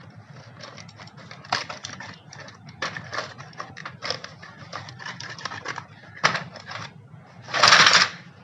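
A padlock being taken out of its packaging: scattered clicks, taps and rustles of handling, with a louder scraping rustle lasting about half a second near the end.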